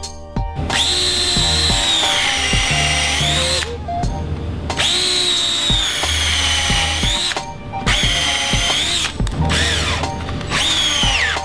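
Cordless drill boring holes into a plywood pallet block in about five runs of a few seconds each. The motor's whine sags in pitch as the bit bites and rises again as it frees up.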